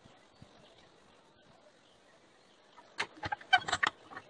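About three seconds in, a quick run of sharp metal clinks and knocks: a railroad spike being shifted and knocked against the jaws of a bench vise.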